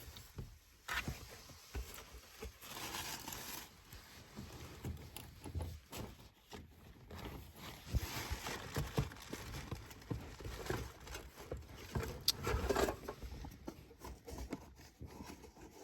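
Rummaging: irregular rustling, light knocks and clicks of objects being handled and moved about while searching for a bag.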